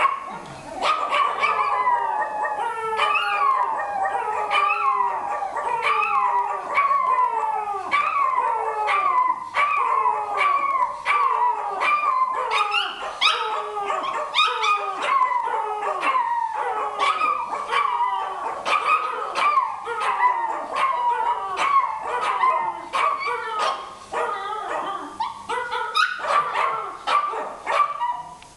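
Several German Spitz dogs howling together, a run of short cries that slide down in pitch about once a second, their voices overlapping. The howling is set off by a street vendor passing outside.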